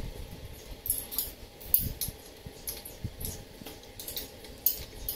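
Hands handling and fitting a rubber tube against a motorcycle's frame and plastic panel: irregular sharp clicks and taps with a few soft knocks and rustling.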